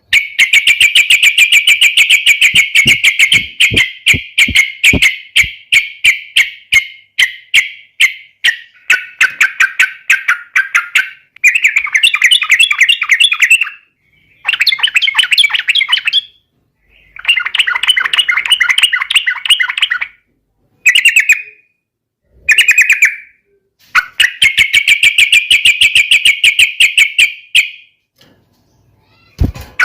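Yellow-vented bulbul (trucukan) singing loudly in fast, bubbly chattering phrases of a few seconds each, broken by short pauses: the excited fighting song used as a lure to make other bulbuls answer.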